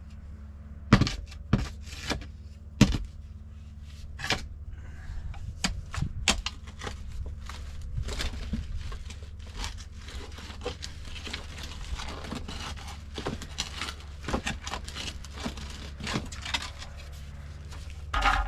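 A shovel scraping and digging in soil and prying at the sewer pipe, with sharp knocks and scrapes at irregular intervals over a steady low hum.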